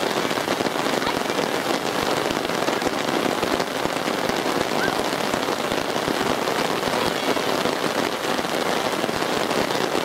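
Steady rain, a dense hiss of many small drop hits close to the microphone.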